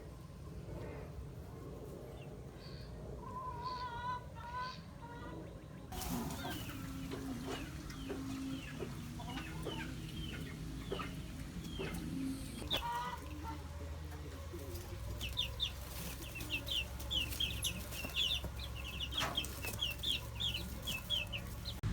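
Chickens clucking and peeping, with abrupt changes in the background about six and thirteen seconds in. Near the end comes a quick run of short, high, falling peeps.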